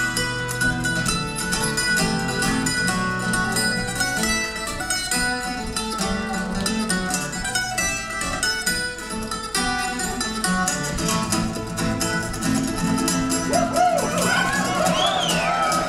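Instrumental break of an Irish folk song played live on acoustic guitar and another plucked string instrument, picking out the tune over strummed chords. Near the end a brief high gliding sound rises and falls above the playing.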